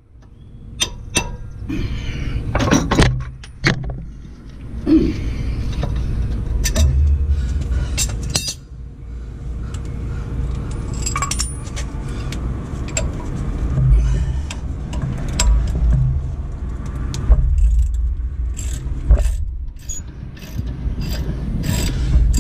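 Scattered metallic clinks and knocks of a 15/16-inch socket and breaker bar being fitted and worked on an engine fitting, over a low steady rumble.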